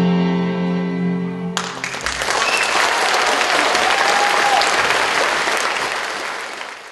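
A symphony orchestra holds a final sustained chord that stops about a second and a half in, and the audience breaks into loud applause that fades out near the end.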